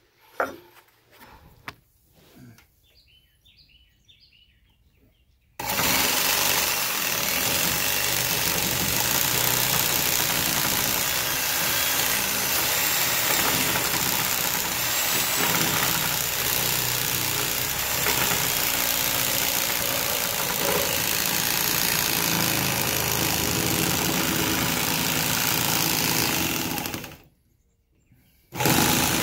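Reciprocating saw cutting through a pressure-treated wooden post, running loud and steady for about twenty seconds, stopping briefly near the end and starting again. Before it starts there is only a sharp knock about half a second in.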